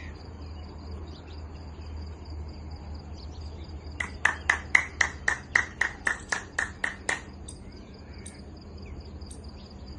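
Crickets or other insects chirring steadily in high, even tones over a low hum. About four seconds in, a run of about a dozen sharp, clicking notes comes at roughly four a second for about three seconds, much louder than the chirring.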